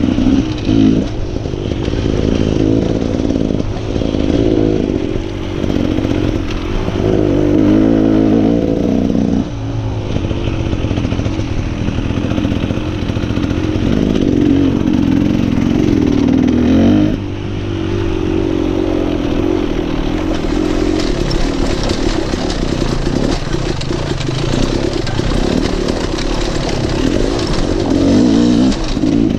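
Dirt bike engine running at varying revs on a rough trail descent, its pitch rising and falling again and again with the throttle. In the last third a rougher, hissier noise joins it.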